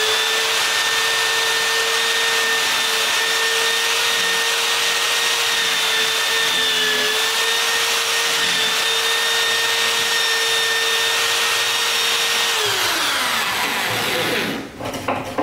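Corded electric drill running at full speed, spinning the DBB Morticer's faceplate cutter into a door edge to cut the latch faceplate recess. The steady whine holds with small dips, then winds down with a falling pitch about two-thirds of the way in, followed by a few light knocks near the end.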